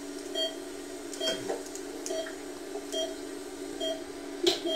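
Heart-monitor (ECG) style beeping: a short beep repeating a little under once a second, six times, over a steady low hum. A sharp knock comes near the end.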